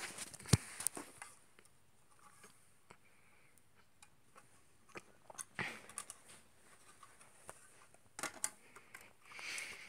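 Plastic Lego model being handled: scattered clicks and short rustles, with one sharp click about half a second in and a longer rustle near the end.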